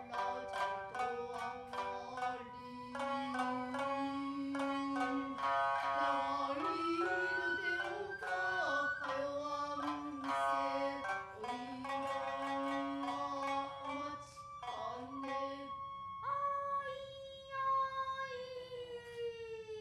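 Hauta song: shamisen plucked in short, sharp strokes under a woman's singing voice, which holds long, wavering notes. Near the end the song settles on one long held note that sinks slightly in pitch.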